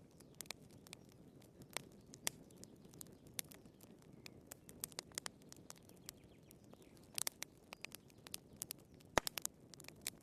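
Firewood burning in a fireplace: irregular sharp pops and snaps over a soft low rush of the flames, with a quick cluster of pops about seven seconds in and the loudest snap about nine seconds in.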